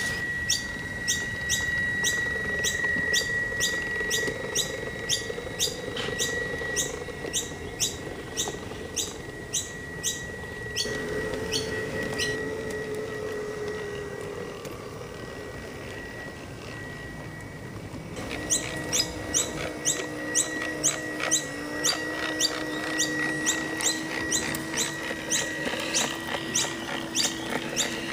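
G-scale model diesel rail motor running on a garden railway: its wheels click over the track about two or three times a second above a faint motor whine. The clicking dies away for a few seconds past the middle, then picks up again.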